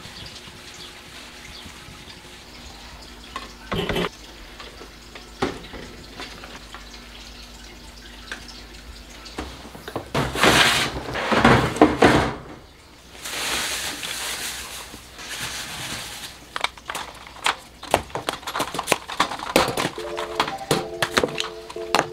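Kitchen cleaning noises: a sponge wiping a stone countertop, a loud burst of noise about ten seconds in, then a run of light clatter as used plastic coffee pods drop into a lined kitchen trash can. Background music comes in near the end.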